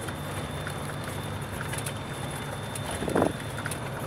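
Cab noise of a truck driving on a rough dirt road: a steady low engine drone and road noise with small rattles and clicks, and one brief louder bump about three seconds in.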